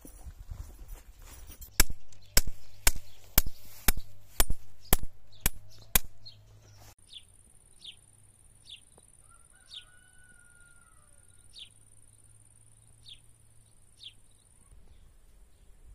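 A run of about nine sharp clicks, roughly two a second, stops abruptly about seven seconds in. Then a bird gives short falling chirps every second or so over a steady high buzz.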